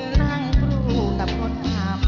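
A woman sings into a handheld microphone with a band behind her: a wavering sung melody over steady bass notes and sharp drum beats.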